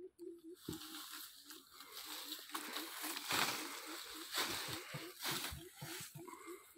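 Dry straw and bamboo leaves rustling and crackling as straw-wrapped bamboo plant bundles are handled and leaves brush past. Under it a faint low pulse repeats about three times a second.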